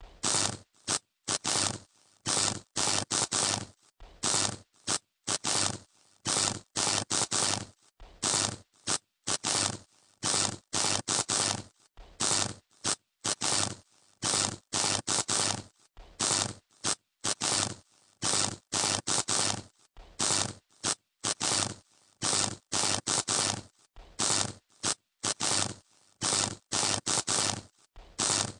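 Electrical short circuit arcing: irregular bursts of sparking crackle and buzz, starting and stopping several times a second with short pauses between.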